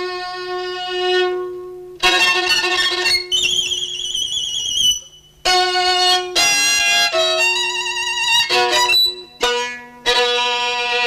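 Solo violin playing a showy piece in short phrases broken by brief pauses, with a long, very high wavering note about three seconds in.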